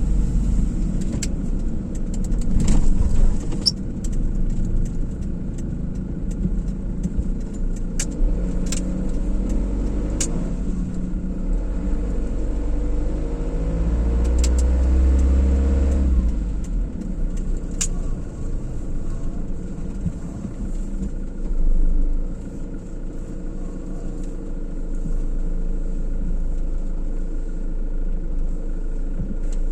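Car driving: steady engine and tyre rumble, with a few sharp clicks scattered through. About halfway in the pitch rises for a few seconds with a deeper rumble, which stops suddenly.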